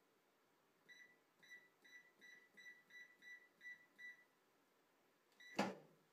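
Breadman bread machine's control panel beeping as its buttons are pressed to select dough mode: about nine short high beeps, roughly three a second. About a second later comes one more beep with a sharp knock as Start is pressed.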